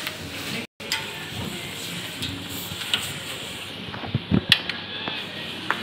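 Clothes hangers clicking and scraping on a shop rack as garments are pulled out and handled, with a few sharp clicks about two-thirds of the way in, over the steady background noise of a shop.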